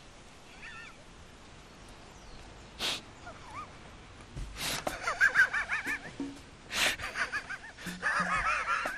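A man crying loudly in wavering, sobbing bursts that begin about four and a half seconds in, with a few sharp sniffs or gasps before and between them.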